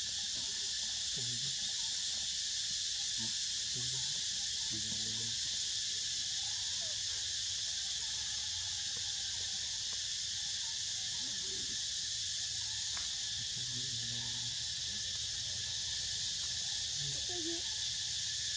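Steady, unbroken insect chorus, high-pitched and even, with faint voices now and then underneath.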